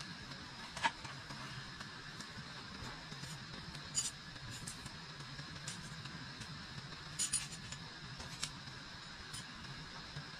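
A folding metal camp table being unfolded and set down: scattered sharp clicks and clinks, two of them close together a little after seven seconds, over a steady faint hiss.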